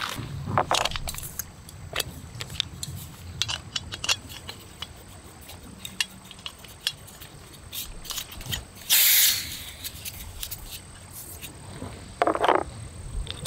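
Scattered small clicks and clatters of a Jetboil camp stove's metal and plastic parts being handled as the burner is fitted onto its fuel canister. There is a brief hiss about nine seconds in and a short rattle near the end.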